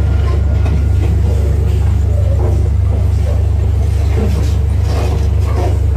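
Passenger train running, a steady low rumble heard from inside the carriage's toilet compartment.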